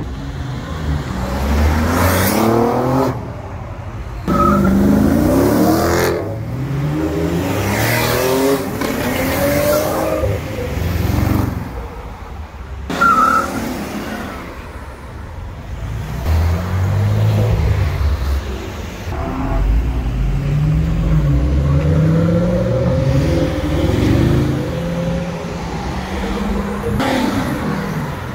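Performance cars accelerating hard past one after another, engine and exhaust note rising through the gears in repeated sweeps. Sudden cuts break between the passes.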